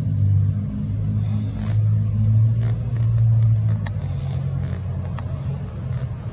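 A steady low machine hum that steps to a slightly different pitch about four seconds in, with two sharp clicks in the second half.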